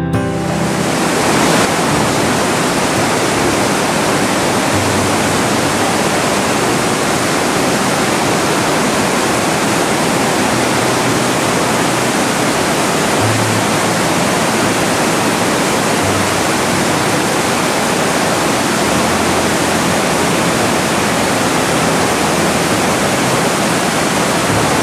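Steady, loud rush of a mountain torrent in flood plunging as a waterfall through a narrow rock gorge, the stream swollen after a storm.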